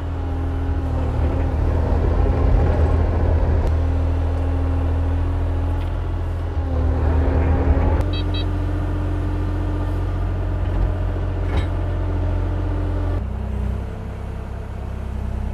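Kubota mini excavator's diesel engine running steadily under hydraulic work, its pitch stepping up and down a few times as the boom and tracks are worked.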